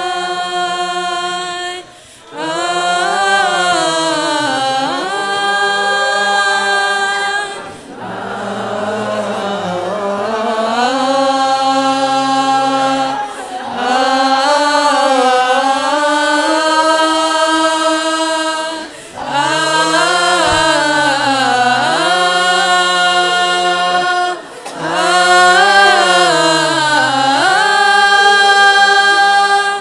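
Unaccompanied Islamic devotional chant: one melodic line sung in long drawn-out phrases of about five seconds that bend up and down in pitch, with short pauses for breath between them.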